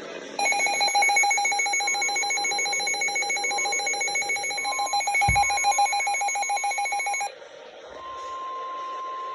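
An alert receiver's electronic alarm beeping in rapid pulses for about seven seconds, with a single low thump about five seconds in. Underneath it, the NOAA Weather Radio warning alarm tone comes in as a steady single tone and carries on alone after the beeping stops. Together they mark an incoming severe thunderstorm warning.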